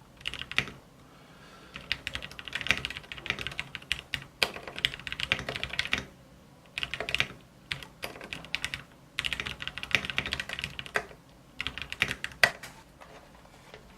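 Typing on a 60% mechanical keyboard in a wood-and-aluminum case: bursts of rapid key clicks, with pauses of about a second between them.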